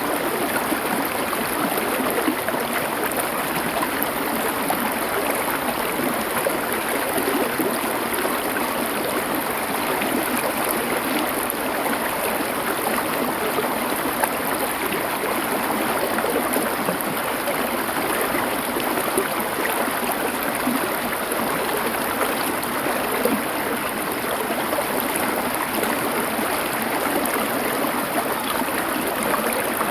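Small river or stream flowing over stones: a steady, even rush of water with fine splashing and trickling, unchanging throughout.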